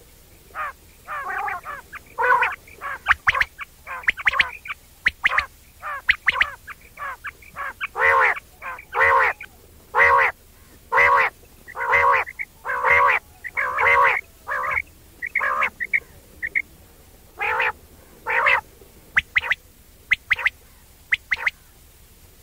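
Quail giving its 'wong wong' call: a long series of short nasal notes, some in quick pairs, with uneven pauses between them. The notes thin out in the last few seconds and stop just before the end.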